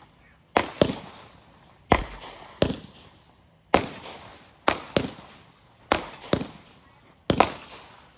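Consumer fireworks going off in a rapid series of sharp bangs, about eleven in eight seconds, often in close pairs, each with a short fading echo.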